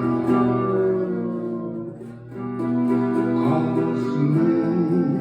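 A song with acoustic guitar and a voice singing drawn-out notes, with a short lull about two seconds in.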